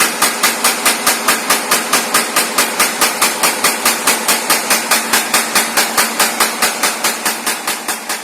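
Blacksmith's mechanical power hammer striking in a fast, even rhythm of about five blows a second, over a steady hum.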